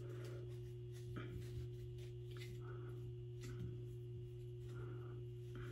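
Steady low hum throughout, with faint scattered rustles and light ticks of a synthetic wig's hair being gathered and held up by hand.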